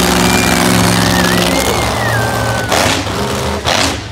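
Monster truck engine running loud and hard at high revs. Two short, sharp noise bursts come near the end.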